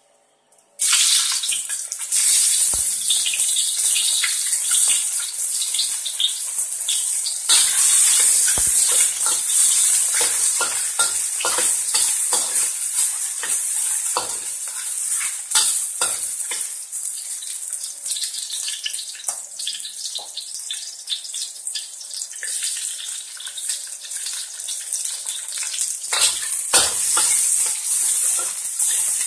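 Oil sizzling and crackling in a hot stainless-steel wok. It starts suddenly about a second in, with louder crackles near the end as small pieces of food are dropped into the oil.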